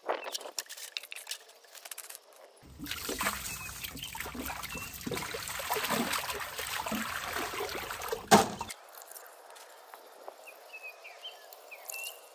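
Water poured from a watering can splashing into an old ceramic sink for about six seconds, ending with a sharp knock. Before the pour there is scratchy rubbing of a hand over the sink's dirty glazed surface.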